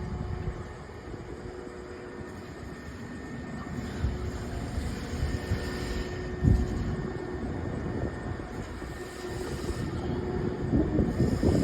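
Heavy machinery engine running steadily at a construction site, a low rumble with a steady hum. There is one sharp thump about six and a half seconds in, and the machine gets louder near the end.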